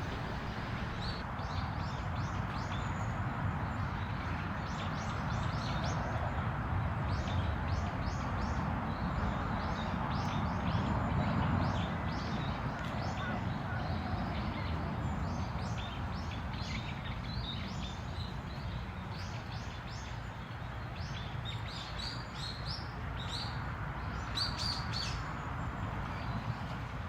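Small birds chirping and twittering, many short high calls throughout and busiest near the end, over a steady low outdoor background rush.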